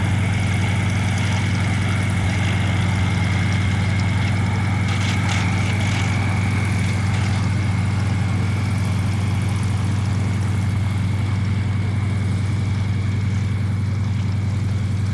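A light aircraft's piston engine and propeller running steadily at low power: an even, deep drone with no change in pitch.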